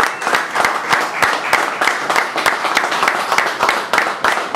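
Audience clapping and applauding: many separate hand claps in a quick, irregular patter that keeps up steadily.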